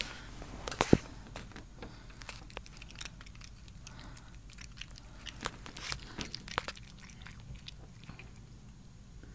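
A cat crunching dry kibble eaten from a hand: a run of small, irregular crunches, with one sharper click about a second in.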